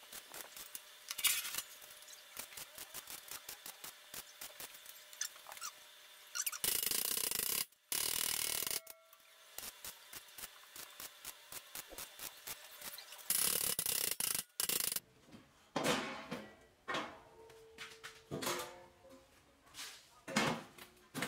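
Workshop tool sounds while a steel lathe stand is being put together. First a run of fast ratchet-like clicks, then three loud bursts of noise about a second long each, then scattered knocks.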